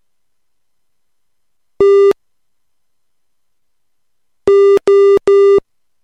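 Morse code practice tone beeping: one long beep, then about two and a half seconds later three long beeps in quick succession. Each beep is about a third of a second, which reads as a dash, so the letters are T and then O, sent with wide spacing between letters for slow-speed copying practice.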